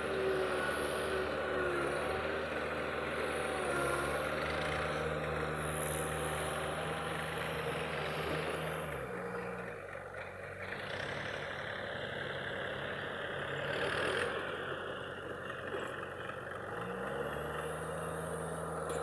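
Diesel engine of a Caterpillar MS070-2 hydraulic excavator running steadily while it digs. Its note drops lower about nine seconds in and rises again near the end.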